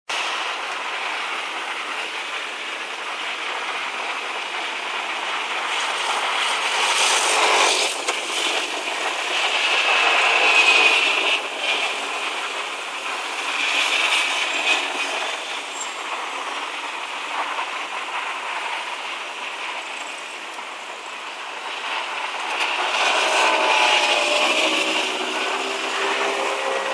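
Road traffic at a city intersection: a steady rush of cars going by, swelling several times as vehicles pass close. An engine hum rises and falls near the end.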